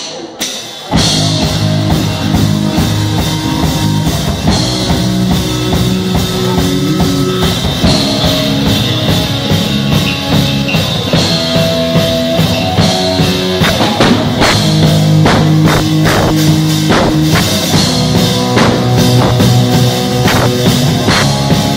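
Live rock band playing electric guitar, bass guitar and drum kit. The full band comes in together about a second in, after a few sharp clicks, and plays on loudly and steadily.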